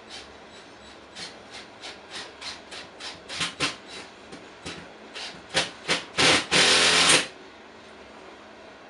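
Loaded coal hopper train rolling past, with a run of short rasping noises that grow louder and end in a loud hiss just under a second long, about six and a half seconds in.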